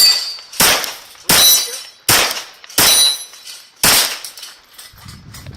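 Glock 34 9mm pistol firing six shots at a steady pace, a little under a second apart, at steel targets. Some hits leave a high metallic ring from the struck plates.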